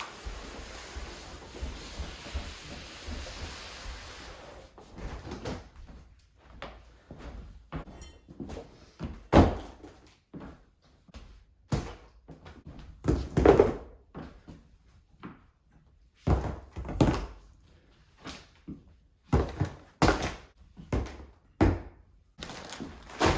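A steady rushing hiss for the first few seconds, then a string of irregular knocks and thuds, a few of them loud, like objects being set down or bumped.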